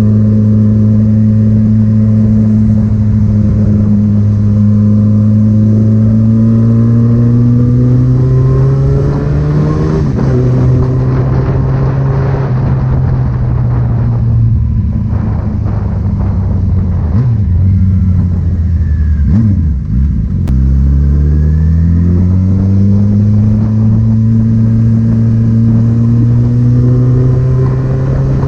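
Loud car engine and exhaust pulling through the revs: the pitch climbs, falls back about ten seconds in as if at a gear change, sinks low for a few seconds, then climbs steadily again near the end.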